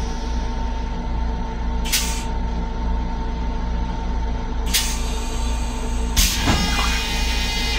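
Long Island Rail Road M7 electric railcar running, heard from inside its restroom: a steady low rumble with a constant hum, broken by three short hisses of air about two, five and six seconds in.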